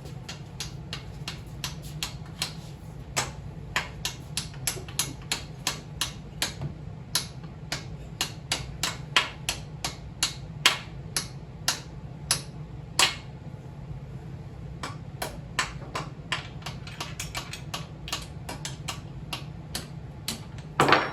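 Hammer blows on a motorcycle engine mounting bolt, driving it out of the frame: dozens of sharp metallic taps, about two to three a second, with a short pause about two-thirds of the way through.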